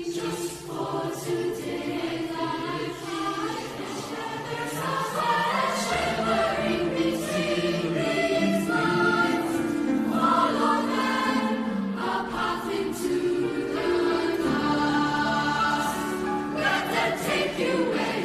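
Mixed-voice school choir of girls and boys singing in several parts, in chords.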